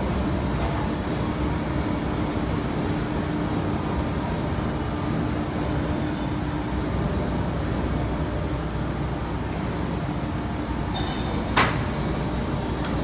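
TDB-1000L IBC-tank blow moulding machine running: a steady mechanical drone with a faint steady hum tone in the first half. A single sharp clank stands out about three-quarters of the way through.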